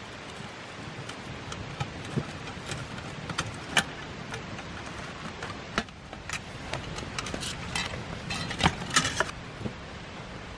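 Pliers twisting thin wire around a metal cooking pot's handles, making small metallic clicks and clinks, with a quick run of louder clicks near the end, over a steady background hiss.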